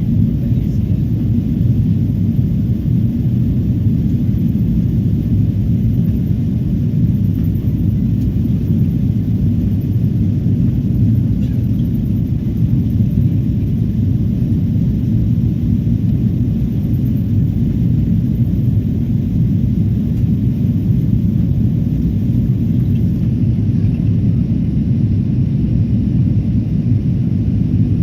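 Steady, loud low rumble of a Boeing 777 heard from inside the passenger cabin: jet engine and airflow noise during the takeoff and climb, even and unchanging.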